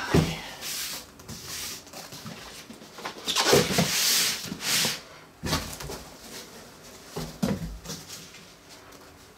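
Cardboard boxes scraping and knocking while packing peanuts rustle, as a boxed radio is pulled out of a shipping carton and set down on a plastic folding table, with a few sharp thuds and a longer stretch of rustling about three to five seconds in.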